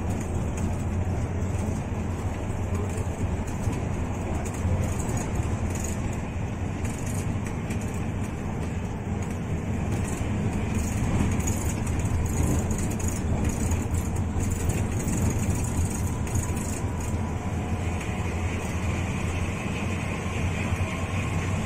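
Hino RK8 R260 bus driving along, its diesel engine giving a steady low drone under continuous road noise.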